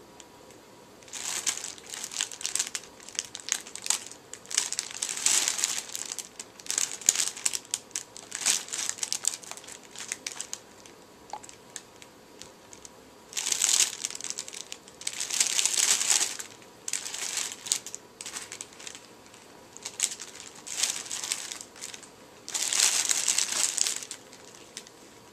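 Crinkly lining of a fabric cat tunnel rustling and crackling in irregular bursts as cats move inside it and paw at it.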